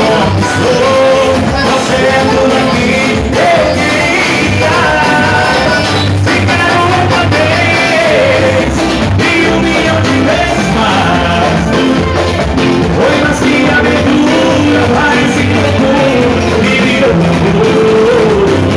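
Live band music played loud: a singer over electric guitar and drums, with a steady beat.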